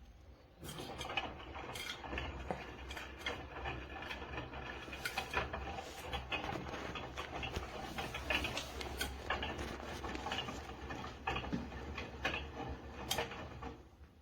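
Irregular mechanical clicking and rattling, dense and uneven, starting about half a second in and stopping just before the end.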